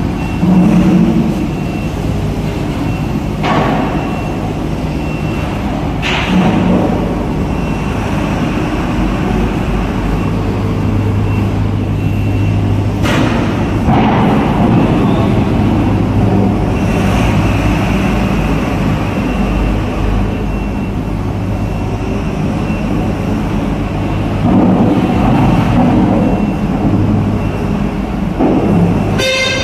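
Large diesel forklift running steadily in an enclosed steel vehicle deck, under a constant low machinery hum, with a few sharp metal knocks and clanks.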